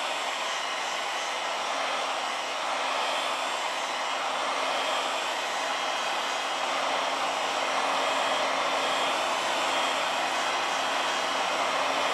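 Heat gun blowing hot air in a steady rush, with a faint steady hum from its fan underneath, heating an iPhone screen to soften its adhesive.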